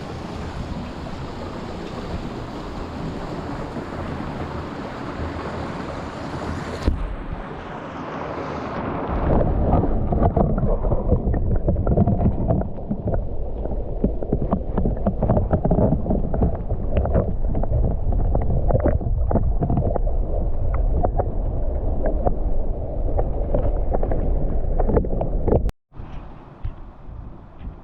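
Steady rushing of a mountain stream. About nine seconds in, heavy low rumbling wind noise on the microphone and many small crackles join it. The sound cuts out briefly near the end and returns quieter.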